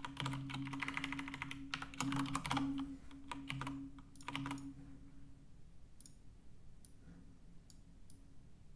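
Rapid typing on a computer keyboard for about four and a half seconds as a spreadsheet formula is entered, then a few scattered single clicks.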